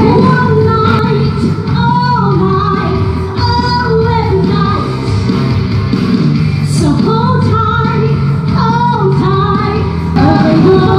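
A rock song with a woman singing lead over a full band backing, her sustained, bending notes held above a steady, dense accompaniment.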